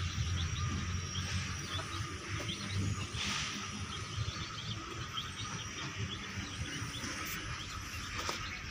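Outdoor ambience of many small, rapid chirps from birds and insects, over a low rumble of handling noise as the phone moves against the fence.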